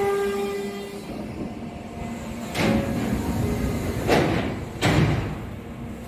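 Shin-Keisei electric commuter train coming to a stop at a platform: the motor whine fades out in the first second, then three short hisses of compressed air come from the brakes and the pneumatic door gear as the doors open.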